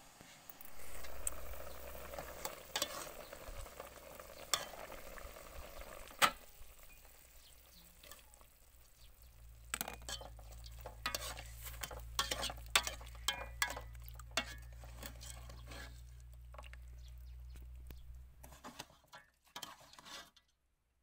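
A pot of papaya and chicken soup cooking on a portable gas stove, hissing at first, then a metal ladle stirring it with many quick clicks and scrapes against the aluminium pot. The stirring is densest in the second half and stops shortly before the end.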